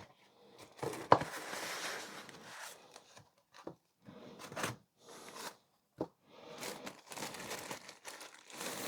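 Packaging being handled as a product is unboxed: crinkling and rustling in irregular bursts, with a couple of sharp knocks.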